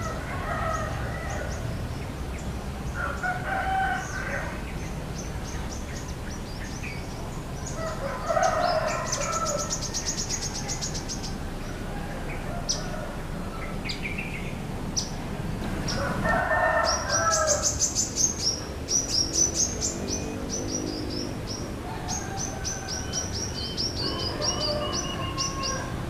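Fowl calling four times, each call about a second long, while small birds chirp in quick, high, rapid trills now and then.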